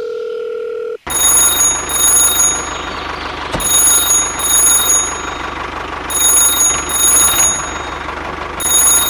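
An electronic alarm-like ring: a steady low tone for about a second, then a dense buzzing ring with pairs of high beeps about every two and a half seconds over a steady hum.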